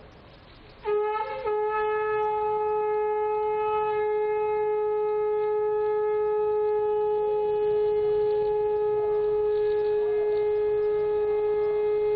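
Conch shell (shankh) blown in one long, unbroken note. It starts abruptly about a second in, wavers briefly, then holds a steady pitch for over ten seconds.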